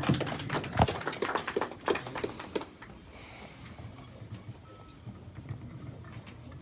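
A small group applauding by hand in a room; the clapping dies away about three seconds in, leaving faint room noise.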